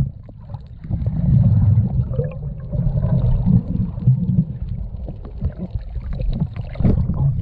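Muffled, surging rumble and sloshing of seawater around a camera held in the sea while snorkelling, with scattered small clicks.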